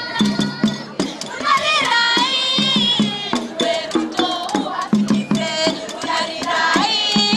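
Traditional folk dance music: singing over a quick, repeating drumbeat, with sharp percussive clicks.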